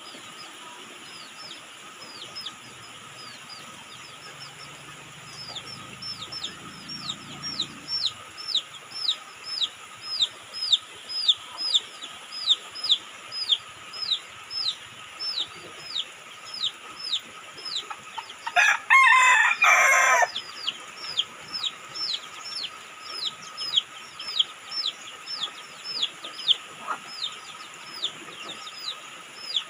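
A rooster crows once, about two-thirds of the way through, over a steady run of short, high, falling chirps at about two a second. Steady rain hisses underneath.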